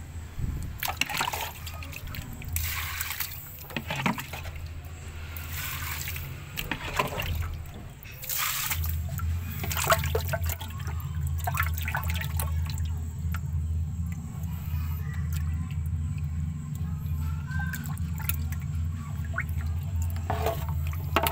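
Water splashing and sloshing in a plastic tub as alligator gar thrash and move about in it, in repeated short splashes. Underneath runs a steady low hum that gets louder about nine seconds in.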